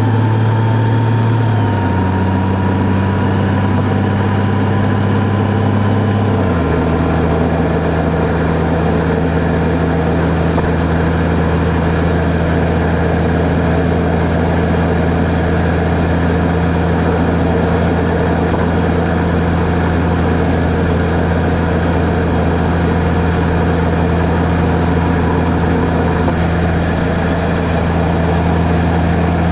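Car engine and road noise while driving: a steady low engine drone that steps down in pitch twice in the first seven seconds, then holds steady.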